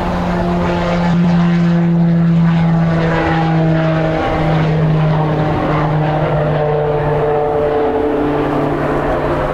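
Piaggio P180 Avanti's twin pusher turboprops at takeoff power during the takeoff roll, rotation and climb-out. They make a loud, steady drone with a strong low propeller buzz, and the pitch shifts slightly as the aircraft goes by.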